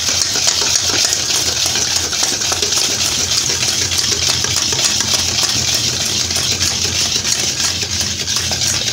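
Wire balloon whisk beating a thick butter-and-sugar mixture by hand in a stainless steel bowl: rapid, continuous scraping and clinking of the metal wires against the bowl.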